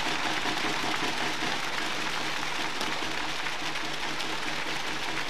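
Steady, even crowd noise in a badminton arena during a rally.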